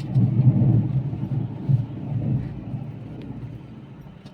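Low rumble of a Maruti Eeco on the move, loud at first and dying away steadily over a few seconds.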